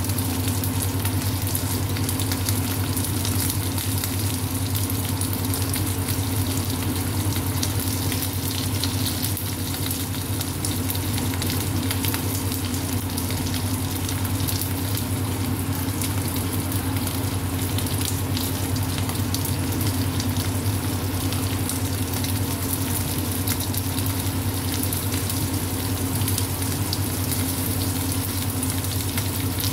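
Small dried fish (tuyo) frying in hot oil in a nonstick pan: a steady sizzle with fine crackling throughout. A steady low hum runs underneath.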